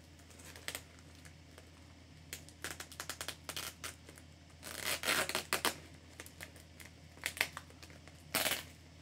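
Scratching and tearing at a shipping package as it is worked open by hand, in irregular short bursts with a longer tearing stretch about halfway through.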